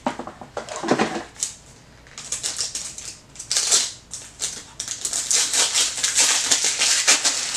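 Protective plastic film crinkling and crackling as it is handled and peeled off a hair-styling tool's handle, in a fast, dense run of crackles from about two seconds in.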